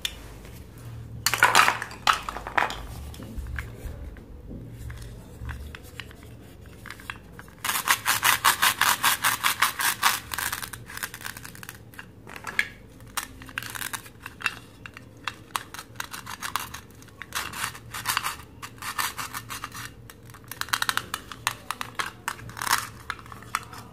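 Plastic toy cutting fruits handled by hand: light plastic clicks and clatter as pieces knock together, with a rapid rasping tear lasting about three seconds a third of the way in, as halves of a toy fruit are pulled apart.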